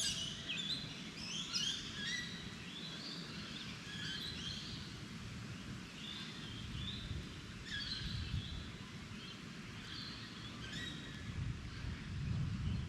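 Small birds chirping, with short calls coming every second or so throughout, over a steady low rumble.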